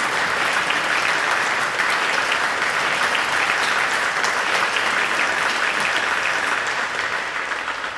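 Live audience applauding, dense steady clapping that begins to die away near the end.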